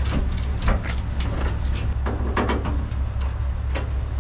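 Truck diesel engine idling steadily, with irregular sharp metallic clicks and knocks from fittings on the trailer being handled.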